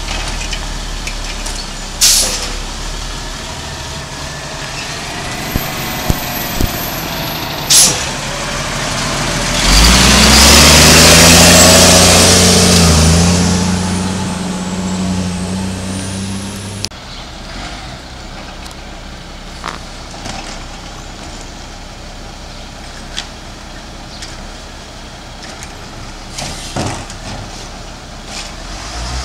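Heil Rapid Rail side-load garbage truck running, with two sharp bursts of air about 2 and 8 seconds in. About 10 seconds in the engine revs up loudly and holds under a strong hiss as the truck pulls away, then the sound drops suddenly to a quieter engine running with a few small clicks.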